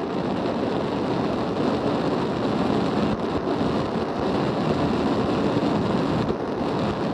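Self-pressurizing alcohol stove burning bioethanol, its vapour jet giving a steady rushing noise while the flame burns very unstably: the owner puts this down to the jet nozzle being too small, so the alcohol gas comes out under too much pressure.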